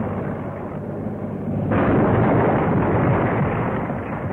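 A Ford 223 six-cylinder engine, running while swung on a crane, crashes into a brick wall, knocking bricks loose. It is a loud, rough crashing rumble that jumps up suddenly about two seconds in.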